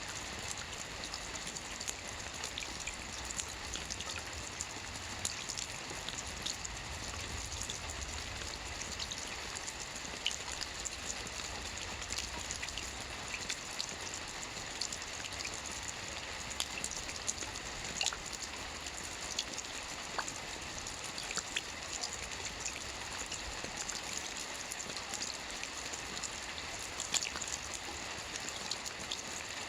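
Steady rain: an even hiss with many separate drop hits ticking through it.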